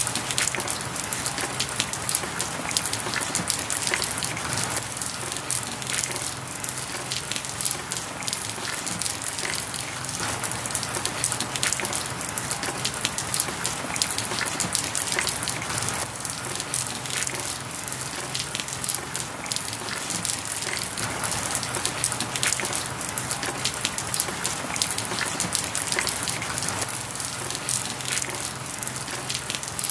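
A steady, dense crackling hiss of many fine clicks, with a faint low hum underneath.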